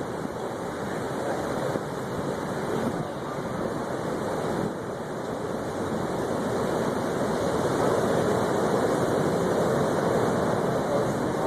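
Steady rushing roar of strong wind driven by the EF4 tornado, growing somewhat louder about seven seconds in.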